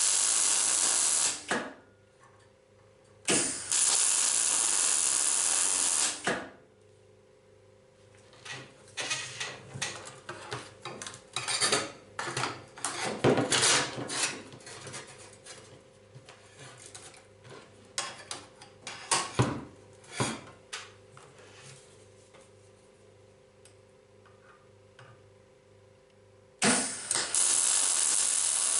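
Arc welding tack welds on steel brackets: three runs of steady crackling hiss, each a few seconds long, at the start, about four seconds in and near the end. Between them come scattered clinks and knocks of metal being handled.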